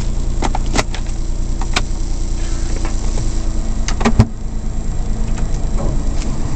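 Suzuki Carry kei truck's three-cylinder 660 cc engine idling steadily, heard inside the cab. There are a few light clicks, and a louder clunk about four seconds in as the gear lever is moved.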